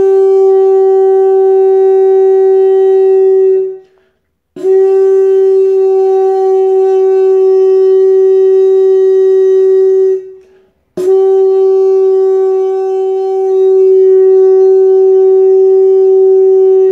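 Kudu horn blown in three long, steady blasts on one unchanging note, with short breaks for breath about four and ten seconds in.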